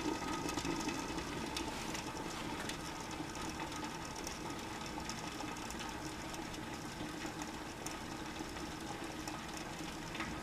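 Groen TDB 6-10 electric jacketed tilt kettle heating water toward a boil: a steady low rumble from the heated inner jacket, with faint scattered ticks of forming bubbles.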